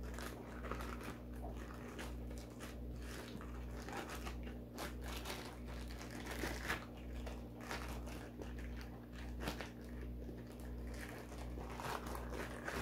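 Thin clear plastic bag and the paper booklets inside it crinkling and rustling as they are handled and slid together, in many irregular crinkles. A low steady hum runs underneath.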